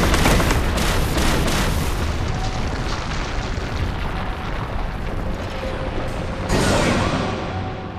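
Anime sound effect of coffins bursting up out of the ground: a loud rumbling crash with rapid knocks that slowly dies away, then a second rumbling surge about six and a half seconds in that fades.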